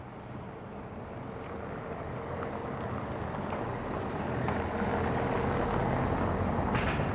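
A motor vehicle's engine, growing steadily louder as it approaches, with a sharp click near the end.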